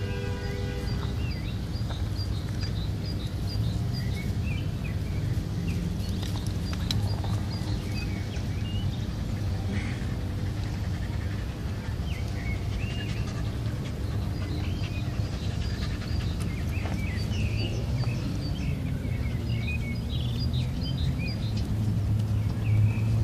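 Birds chirping and trilling in short, scattered calls over a steady low rumble.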